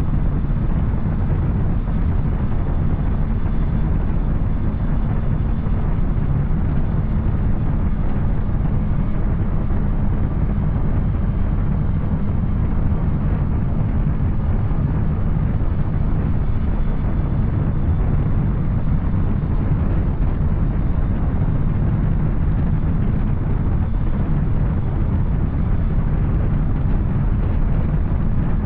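Yamaha Tracer 900's three-cylinder engine through an Arrow exhaust, running at a steady speed under way, mixed with low wind rumble on the microphone.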